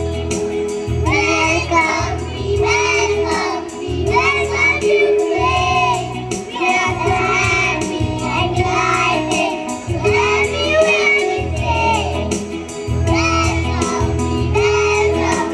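A group of young children singing a welcome song together over instrumental accompaniment with steady bass chords and a regular beat.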